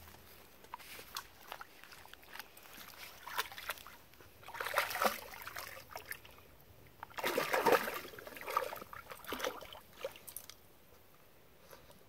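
A greyhound wading in shallow pond water: its legs slosh and splash, with scattered small splashes and two louder bouts of splashing, about five seconds in and again a couple of seconds later, then it quiets down.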